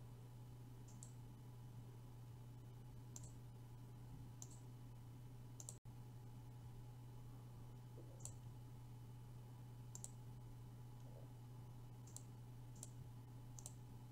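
Faint computer mouse button clicks, about nine scattered through, over a steady low electrical hum.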